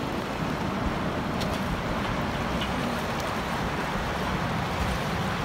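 Steady wind rumbling on a phone microphone outdoors by the sea, an even rushing noise without any clear event.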